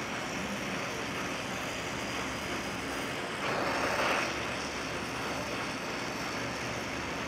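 Oxy-fuel brazing torch hissing steadily as its flame heats a torque converter turbine's blades while silicon bronze rod is melted in, the hiss growing louder for under a second about three and a half seconds in.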